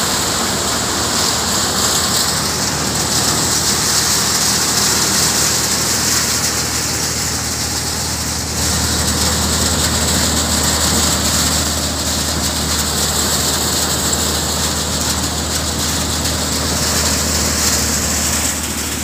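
Vijay Khurai multi-crop thresher running steadily behind its tractor: a constant mechanical drone under a hissing rush of straw and chaff being blown out. About eight seconds in, the low hum grows stronger and the hiss eases.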